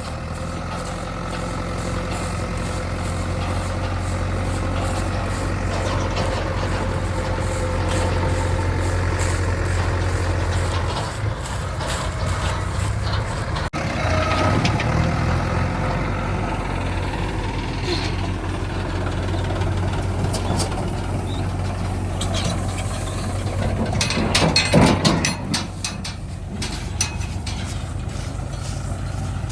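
Diesel engine of a JCB 3DX backhoe loader running steadily as it digs and loads mud, its note shifting now and then with load, with a loud rushing burst about three-quarters of the way through.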